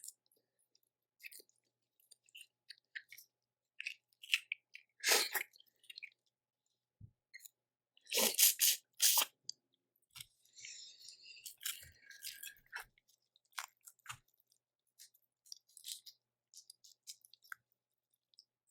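Close-miked eating of a Cajun seafood boil: on-and-off chewing with short crackles and clicks from seafood shells, and a few louder bursts about five and eight to nine seconds in.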